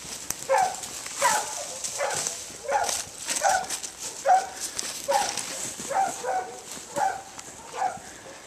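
Mountain cur hog dogs barking steadily ahead, short calls about one to two a second, the sound of the dogs baying a wild boar. Dry brush crackles and swishes as someone pushes through scrub on foot.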